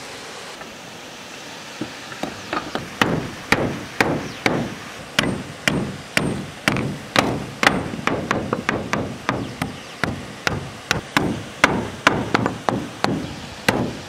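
A hand tool striking wood again and again in a steady rhythm, about two hard blows a second, starting about two seconds in.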